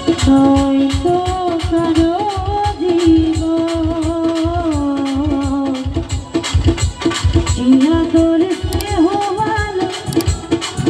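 Live Bangla song: a woman singing with keyboard accompaniment over a steady, busy hand-drum beat.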